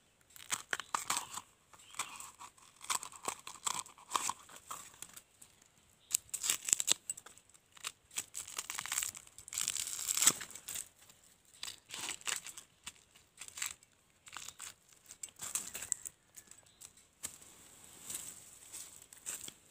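Layers of a young bamboo shoot being peeled and torn off by hand: a run of irregular tearing and crackling strips, one after another.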